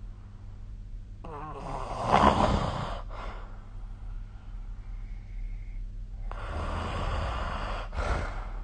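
A sleeping person snoring: two long snoring breaths, the first about a second in and the loudest, the second about six seconds in, each followed by a brief breath. A steady low hum runs underneath.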